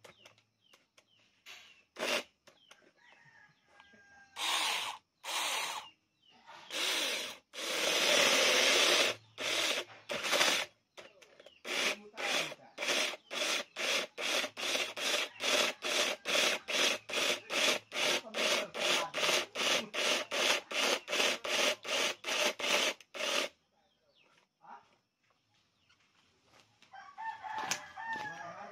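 Cordless 21-volt mini chainsaw cutting into a log in short bursts, then in a fast run of brief pulses, about three or four a second, for some ten seconds before it stops. A rooster crows near the end.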